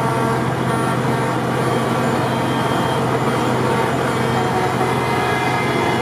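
Steady din of convoy truck and car horns: many held horn tones at different pitches overlapping, over a continuous low hum of idling engines.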